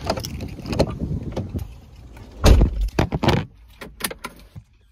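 Knocks and clicks from inside a car, with one heavy thump about two and a half seconds in, like a car door shutting, then a few sharp clicks.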